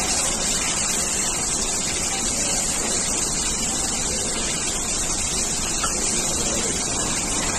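Steady rushing noise of running machinery, with a strong hiss and no rhythm or tone.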